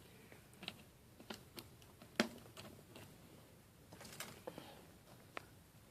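Scattered faint clicks and taps of small plastic parts being handled while a laptop screen's cable connector is fitted back into place; the sharpest click comes a little after two seconds in.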